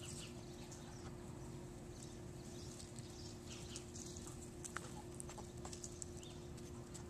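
Puppies' claws clicking irregularly on a concrete pool deck as they walk, faint, over a steady low hum.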